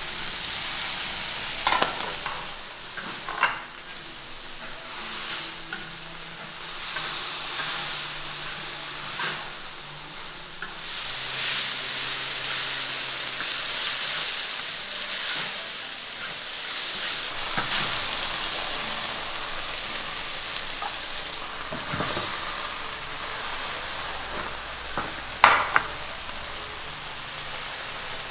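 Pork and dried bamboo shoots sizzling and being stirred in a hot pan at the cornstarch-slurry thickening stage. A steady frying hiss is broken by several sharp clanks and scrapes of the spatula against the pan, the loudest about three seconds before the end.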